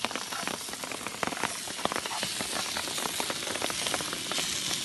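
Steak and vegetables sizzling and crackling in a hot frying pan as they are stirred, a steady hiss with many small pops, the hiss growing denser about three seconds in.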